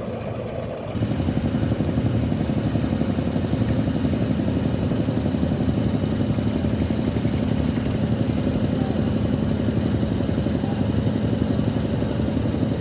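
Fishing boat engine running steadily with a fast, even chug. It gets noticeably louder about a second in and then holds steady.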